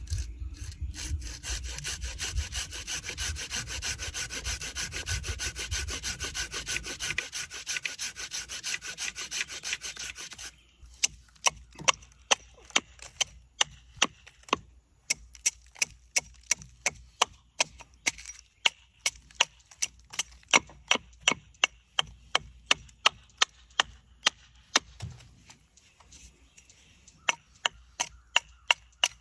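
A walnut spoon blank being hand-sawn: a dense, rapid back-and-forth rasp for about ten seconds. It stops, then the wood takes a run of sharp chopping strikes, about two to three a second, typical of an axe roughing out the blank, with a brief pause near the end.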